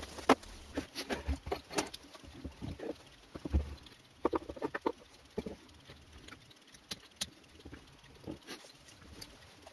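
Irregular light clicks, taps and knocks of small hard objects being handled. They come thickly through the first half and grow sparser after about six seconds.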